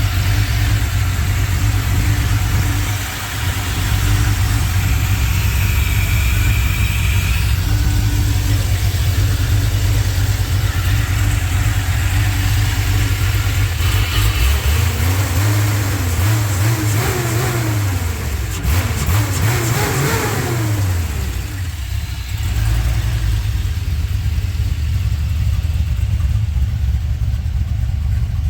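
Swapped-in LS V8 in a 1961 Chevy C10 pickup running steadily, revved up and down several times about halfway through before settling back.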